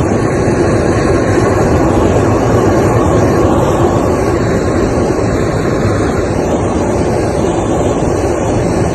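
Steady, loud vehicle noise: an even rush that does not change or break.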